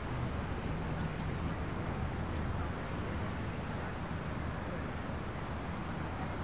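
Steady rushing noise of a bicycle in motion: wind on the microphone over a low tyre rumble, without a break.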